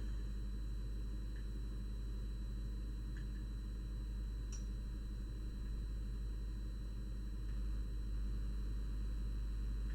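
Steady low electrical hum with a thin, faint high-pitched whine, and a few faint light ticks.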